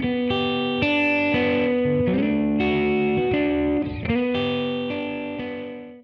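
Closing background music with sustained chords changing every second or so, fading out over the last couple of seconds.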